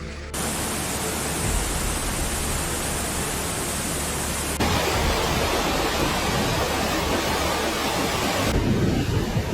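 Steady roar of torrential rain and rushing floodwater, heard in three stretches that change abruptly about half a second in, near the middle and about a second before the end.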